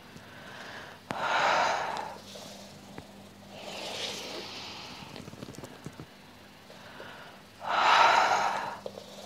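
A woman breathing deeply and audibly while moving through a slow yoga stretch. There are two loud breaths, each about a second long, starting about a second in and near the end, with a softer one in between.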